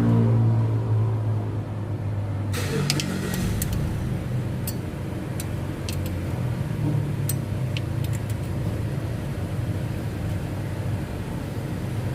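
Background music fades out in the first second or two, leaving a steady low mechanical rumble like a vehicle engine running. Scattered light clicks and clinks sit over the rumble, from about two and a half seconds in.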